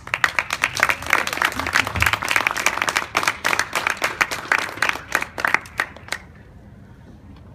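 Audience applauding: many quick hand claps that start at once, thin out and stop about six seconds in.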